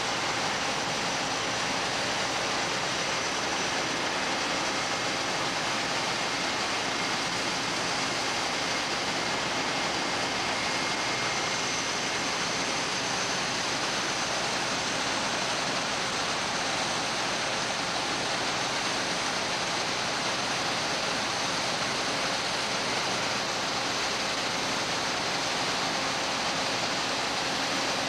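John Deere combine harvesting beans and unloading into a grain truck driving alongside: a steady, even mechanical rush with faint steady whining tones in it.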